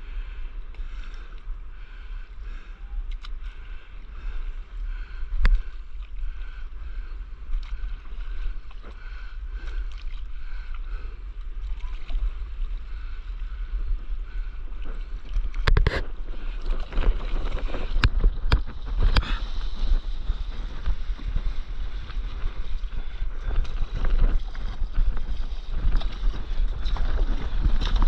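Wind buffeting the microphone over water lapping and splashing around a stand-up paddleboard. From about halfway through come sharper, more frequent splashes and knocks of the paddle and board.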